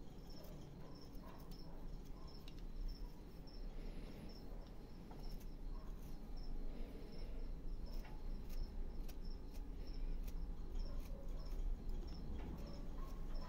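Small hand carving knife cutting into a wooden block in short, quiet scrapes and clicks as chips come away. Behind it a cricket chirps steadily, about two to three times a second.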